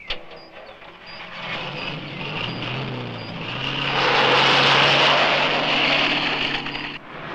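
A Mercedes-Benz fintail saloon's engine running and pulling away. It starts with a sharp knock, its pitch rises about two and a half seconds in, and it grows loudest in the middle before dropping away near the end.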